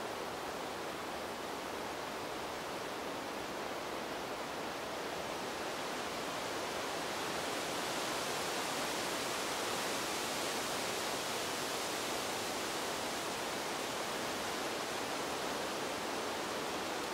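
Wind blowing through trees: a steady rushing of air and leaves that swells into a stronger gust about halfway through, then eases a little.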